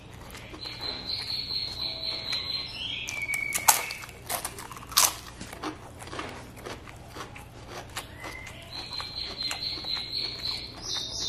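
Close-up eating sounds: wet chewing and lip-smacking clicks as rice is eaten by hand, the two loudest smacks about three and a half and five seconds in. A high buzzing trill sounds twice, each time for about two seconds.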